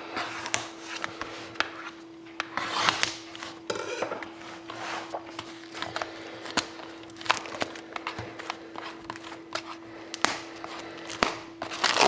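Fingernails scratching and picking at a sealed cardboard trading-card box, with scrapes, sharp clicks and short rasps as the flap is pried open. A steady faint hum runs underneath.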